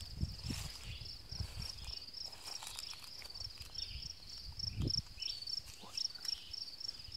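Insects chirping in a steady, rapid, high-pitched pulse of several chirps a second, cricket-like, with low thumps of footsteps and handling as the phone is carried through the grass.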